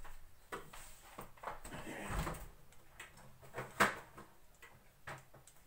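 Kitchen handling noises: scattered knocks and clicks as a door or drawer is opened and shut and things are moved about, with one sharp knock just before four seconds in.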